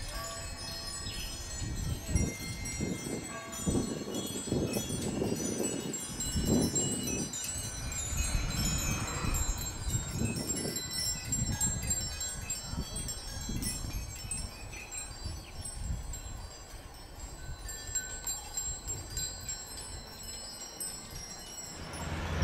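Many small bells on the stupa spire finials tinkling in the wind, a scatter of high ringing tones, over a low, uneven rumble.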